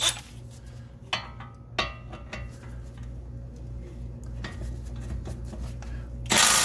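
Light metallic clicks and clinks of a socket and tool being set on a suspension bolt. About six seconds in, a red cordless power tool runs in one loud, short burst as it turns out the bolt holding the ball joint to the steering knuckle.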